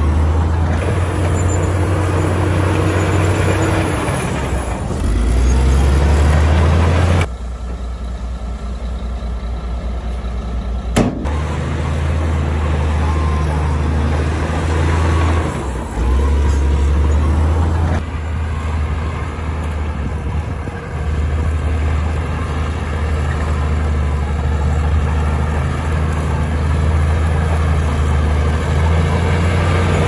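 LiuGong crawler bulldozer's diesel engine working hard as the dozer pushes a pile of dirt, a loud, deep steady drone. The sound drops abruptly about seven seconds in and comes back with a click about four seconds later.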